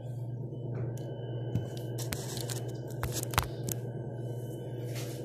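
Clicks and knocks of things being handled on a kitchen counter, over a steady low hum; the loudest knock comes about three and a half seconds in.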